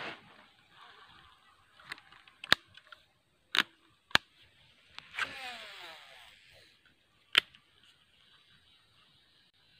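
Fishing reel during a cast: a few sharp clicks, then about five seconds in a whir that falls in pitch over about a second as the spool spins and line pays out.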